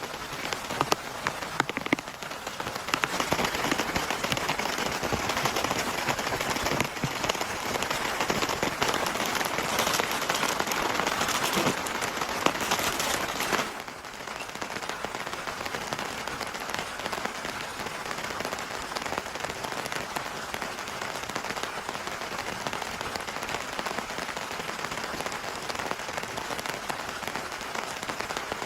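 Heavy rain falling, dense with individual drop hits. It is loud for the first half, then drops suddenly to a softer, steady downpour about fourteen seconds in.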